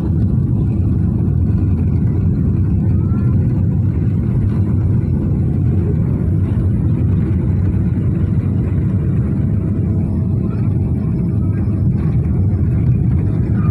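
Steady, deep rumble of engine and airflow noise inside the cabin of a Boeing 777 descending to land with its flaps extended.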